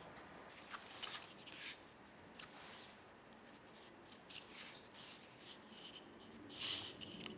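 Faint, irregular scratching and rubbing of cardboard being marked and cut by hand, with short scrapes scattered through and a slightly louder cluster near the end.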